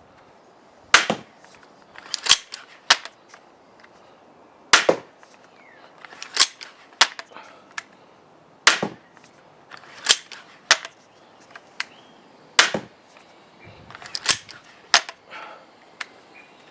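EK Archery Cobra Adder pistol crossbow being cocked and shot repeatedly from its 7-shot magazine: sharp snaps of the string releasing, each followed by two clacks of the cocking lever going back and forward, about every four seconds. It cycles cleanly, with no jams or misfires.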